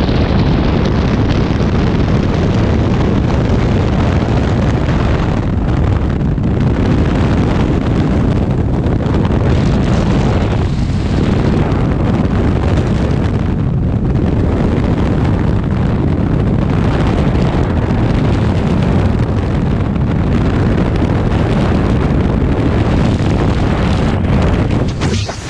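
Skydiving freefall wind rushing over a head-mounted action camera's microphone: a loud, steady, deep buffeting rush. It dips briefly just before the end.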